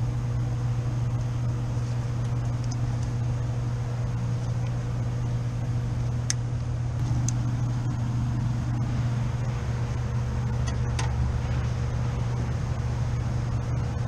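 Steady low hum of running rooftop HVAC equipment, with a thin steady higher tone and a few faint clicks.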